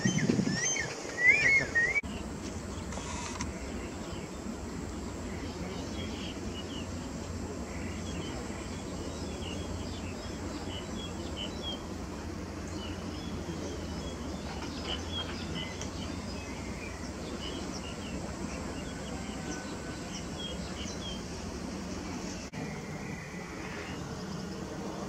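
Outdoor bird ambience: many small birds chirping faintly and often over a steady low background hum, with a thin steady high-pitched tone that stops a few seconds before the end. The first two seconds are louder, with a few short rising whistled calls.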